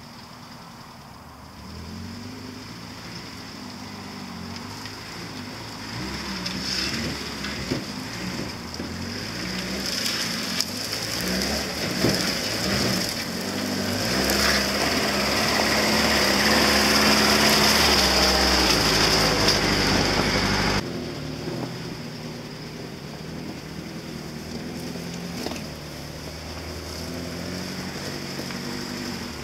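Lada Niva's engine running as it drives off-road across grass and slushy snow, revs rising and falling and growing louder as it comes closer. About two-thirds through it drops suddenly to a quieter engine sound.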